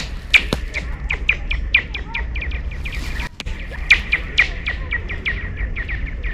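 Thin first ice singing: a rapid run of short, high, bird-like chirps and pings, several a second, over a low rumble.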